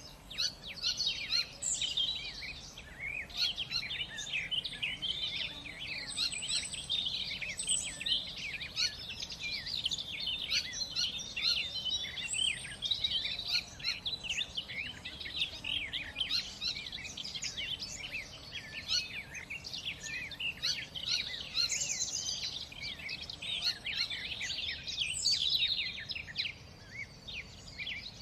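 Many small birds chirping and singing at once, a dense, continuous chorus of overlapping short calls.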